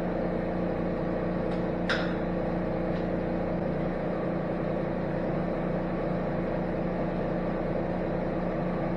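Giddings & Lewis model 25 horizontal boring mill running with a steady hum, with a light click about two seconds in.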